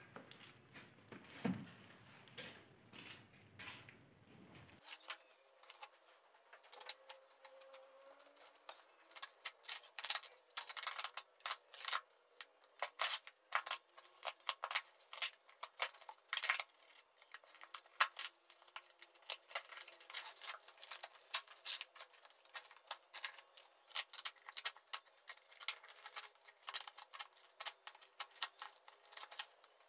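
Rapid, irregular clicks, taps and rustles of a parcel being handled and unpacked by hand, thickest from about ten seconds in.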